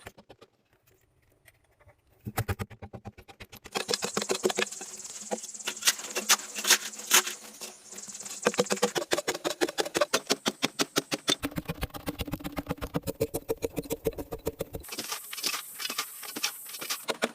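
Rapid, regular knocking or tapping, several strikes a second, starting about two seconds in after a near-silent pause.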